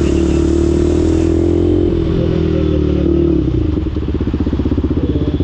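KTM RC 200's single-cylinder engine running steadily. About three and a half seconds in, the revs drop off to a slow, even chugging at low speed.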